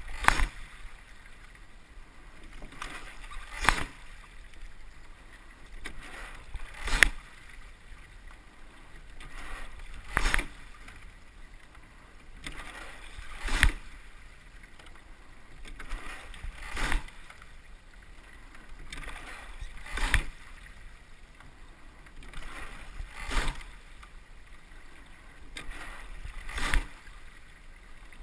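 Rowing shell under way at a steady, low stroke rate: a sharp knock from the oars and rigging at each stroke, about every three and a third seconds, nine times in all, with water rushing along the hull in between.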